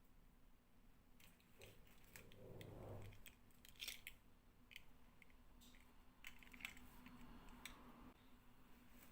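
Faint, scattered clicks and light ticking of small plastic toys and packaging being handled during unboxing, with a soft rustle about three seconds in.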